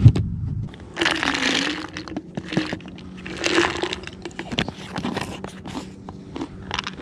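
A boat's carpeted hatch lid shuts with a single loud knock, then a plastic peanut jar is handled, crackling and rattling in two longer bursts with small clicks as its screw lid is worked.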